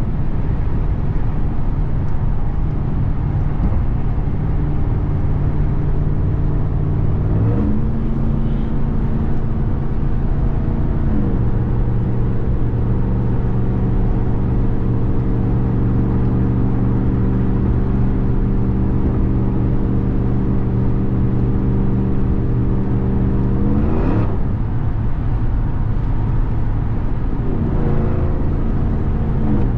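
2021 RAM 1500 TRX's supercharged 6.2-litre Hemi V8 running while driving, over steady road rumble. The engine note climbs twice in the first third, holds steady, then drops back down twice in the last part.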